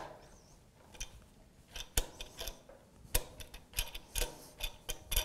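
Irregular clicks and light knocks from the Rifton Dynamic Pacer's chest prompt fitting as it is seated in the groove of the frame clamp and its height is adjusted with the push button. The sharpest clicks come about two and three seconds in.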